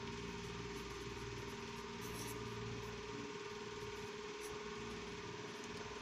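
A steady background hum with a constant mid-pitched tone, like a small motor or fan running, unchanged throughout.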